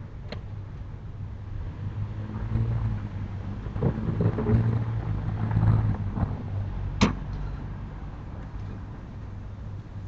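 Sliding storm shutters (amado) being pushed open along their track: a rumbling rattle that builds and fades over several seconds, with a sharp clack about seven seconds in, over a steady low hum.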